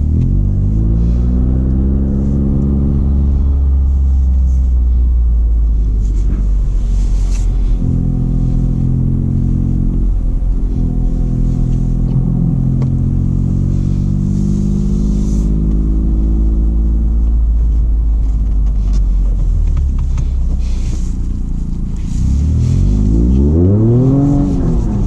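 Toyota GR Corolla's turbocharged 1.6-litre three-cylinder engine, fitted with an FI exhaust and MST intake, revving under hard throttle. The pitch climbs and drops in long pulls, then swings quickly up and down several times near the end.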